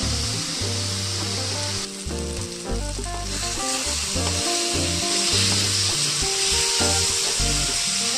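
Onion and tomato masala sizzling as it fries in a metal kadhai, stirred with a wooden spatula. Background music with a steady bass line plays along.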